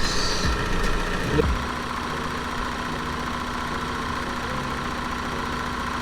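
1990 Toyota Celica GT's four-cylinder engine idling, uneven and louder for the first second and a half, then settling into a steady idle, with plastic parts vibrating.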